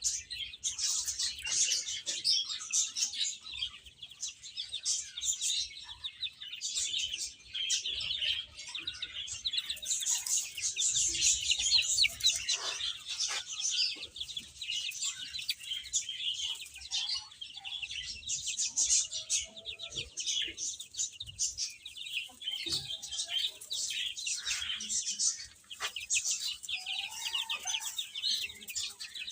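A brood of baby chicks peeping nonstop: many high-pitched cheeps overlapping in a dense chorus, with a few lower calls here and there.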